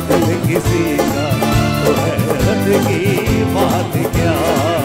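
Live band playing a Hindi film song: a wavering melody line with strong vibrato over a steady drum beat.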